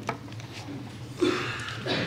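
A pause in a talk heard through a lecture-hall PA, with a steady low hum and a click at the start. About a second in comes a short breath, drawn by an emotional speaker before she goes on.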